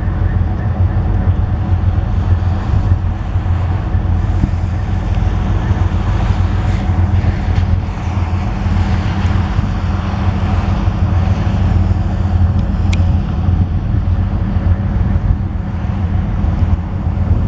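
A railway locomotive's engine running steadily: a loud, deep, even hum with a faint steady whine above it.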